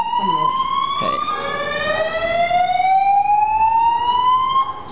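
Fire station turnout alarm calling the engine crew out: an electronic tone sweeping slowly upward in pitch, dropping back low and starting over about a second in, then rising again and cutting off near the end.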